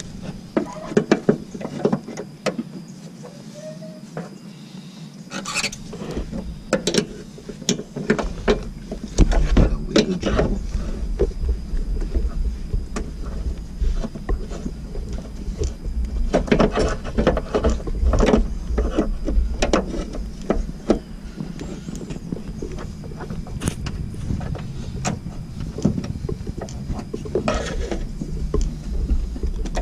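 Hands and pliers working hose clamps and rubber fuel hoses under a car: irregular clicks, knocks and rustling. A low rumble comes in about eight seconds in and continues, and a faint steady high tone runs underneath.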